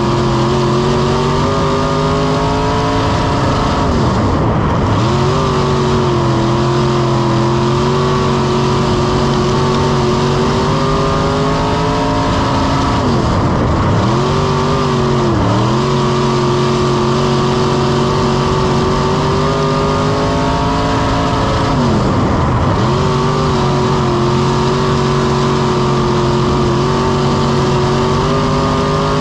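IMCA dirt-track race car engine running hard at lapping speed, heard from inside the cockpit. Its steady note drops briefly and climbs back four times.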